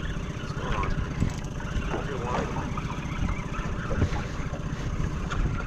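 Wind buffeting the microphone and water sloshing around a small aluminium skiff, a steady low rumble, with faint, short wavering squeaks above it and a faint steady tone near the end.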